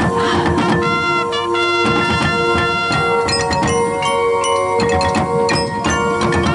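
High school marching band playing: mallet percussion striking quick ringing notes over sustained chords, with drums underneath.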